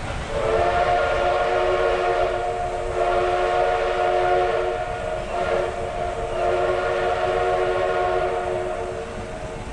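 Steam locomotive's chime whistle sounding a chord of several tones in long, drawn-out blasts, with brief dips between them, as the train approaches the level crossing.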